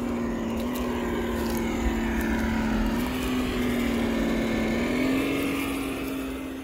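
A motor running steadily at a nearly constant pitch, stepping up slightly twice, then cut off abruptly.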